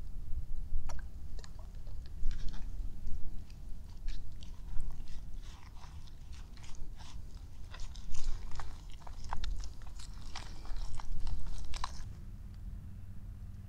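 Wooden spoon stirring a thick, wet spice-and-oil paste in a plastic bowl: irregular wet clicks and scrapes that stop near the end.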